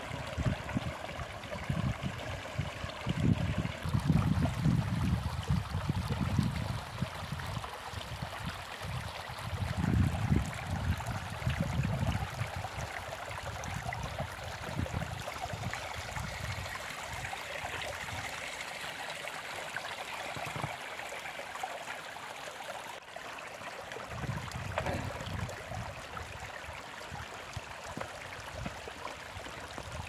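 Water pouring and splashing into a plastic funnel and draining down into a large plastic water jug, a steady trickling and gurgling. Low buffeting rumbles come and go through the first dozen seconds and again briefly later.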